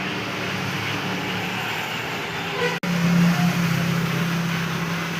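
A steady mechanical hum over a broad noisy background. It cuts out for an instant about three seconds in and comes back louder.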